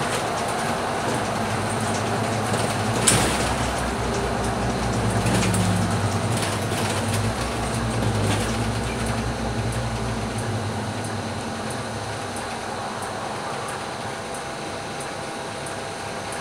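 Scania K310UB city bus heard from inside the cabin on the move: the rear-mounted diesel engine drones low under power for several seconds, then eases off about ten seconds in as the bus slows for traffic, leaving road and cabin noise. A single sharp knock about three seconds in.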